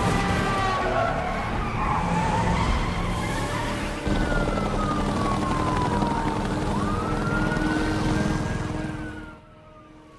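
Car-chase sound effects: a police siren wailing slowly down and up over loud engine and tyre noise. The noise drops away sharply about nine seconds in.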